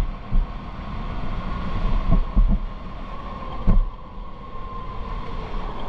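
Electric go-kart running, its motor giving a steady whine that sags slightly in pitch in the second half, over a heavy low rumble with a few short thumps.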